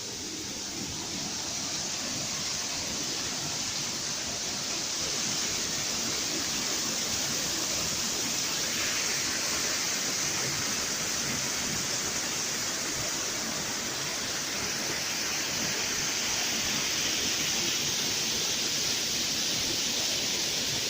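Steady rushing roar of a waterfall, about 25–30 feet high, pouring into a river, growing slightly louder over the first few seconds.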